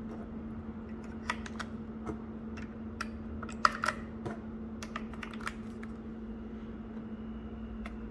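AAA batteries being pushed into a TI-83 Plus calculator's plastic battery compartment: a series of light clicks and taps, the sharpest about halfway through, over a steady low hum.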